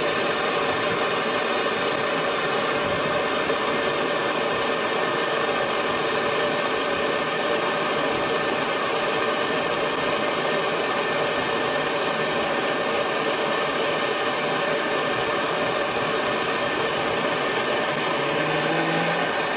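Propane torch flame burning steadily with a constant hiss, held on a screw to heat it.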